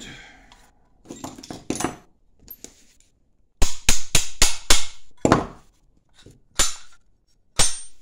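Sharp metal clinks and knocks from a rectangular steel tube with a hinged steel flap and a pair of pliers, handled while the flap's hinge is being tightened. A quick run of clinks comes about halfway through, then single knocks a second or so apart.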